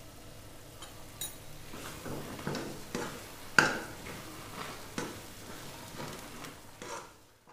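Metal spatula scraping and knocking against a kadhai while turning thick, nearly finished chana dal halwa, in irregular strokes with the loudest about three and a half seconds in. A faint sizzle of the halwa frying in ghee runs underneath.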